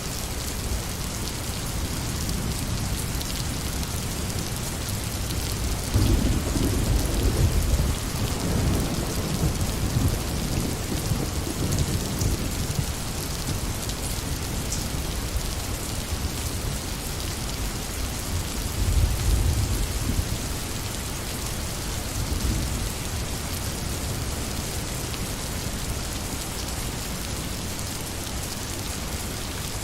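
Steady rain falling, with low thunder rumbling twice: a longer roll starting about six seconds in and a shorter one near the middle.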